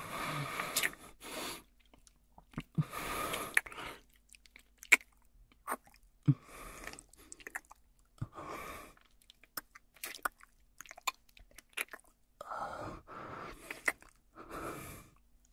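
Kissing sounds: a string of wet lip smacks and mouth clicks, with soft breaths in between.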